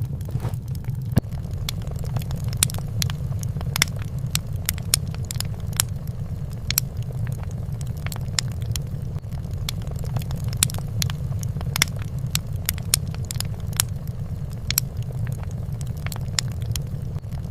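Fireplace fire crackling: a steady low rushing under frequent sharp pops and crackles at irregular intervals.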